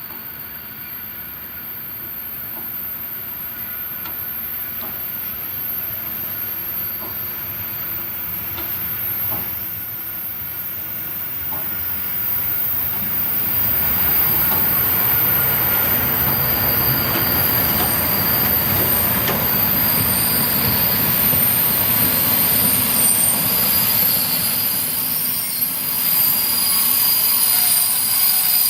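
Train hauled by the steam locomotive 18 201 coming closer with a long, high squeal of braking wheels over the rumble of the train. The sound grows steadily louder over the first half, then holds.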